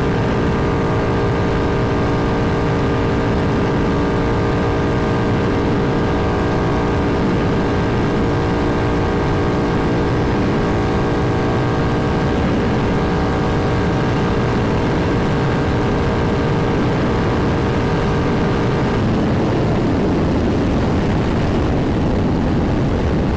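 Triumph Thruxton R's 1200 cc parallel-twin through Meerkat race mufflers, running under way at steady high revs with wind rush, its note holding one pitch. About 19 seconds in, the steady engine tone breaks up into a rougher, noisier sound.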